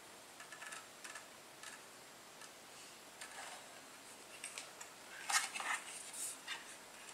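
Faint clicks, taps and scrapes of a TP-Link Archer C7 router's plastic housing and antennas being handled and turned over, with a louder cluster of scrapes and taps about five seconds in.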